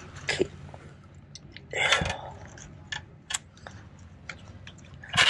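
Hands handling small fishing tackle (a jig head and soft plastic lure): scattered light clicks and ticks, with a louder brush of handling noise about two seconds in.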